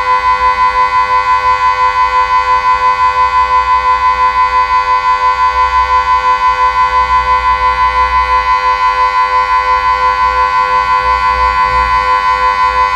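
Delta 6-Blau electronic civil-defence siren sounding a steady, fixed-pitch tone that pulses evenly about four to five times a second. This is Austria's 'Warnung' signal, a three-minute steady tone that warns of approaching danger, here sounded as a test.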